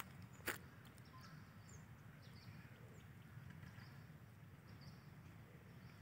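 Near silence: faint outdoor ambience with a low rumble and scattered soft high chirps, and a single click about half a second in.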